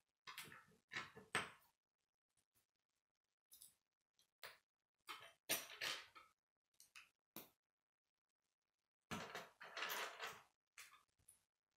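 Plastic K'nex rods and connectors clicking and rattling as they are handled, picked from a loose pile and snapped together. The sound comes in four short groups with silence between.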